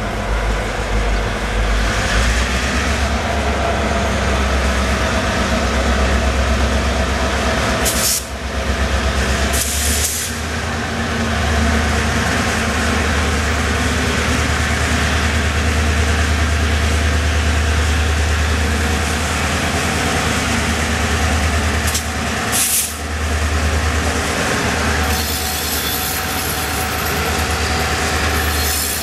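Two EMD GP38-2 diesel-electric freight locomotives approaching and passing at the head of a freight train, their engines a steady low rumble. A high hiss rises near the end as the units draw alongside.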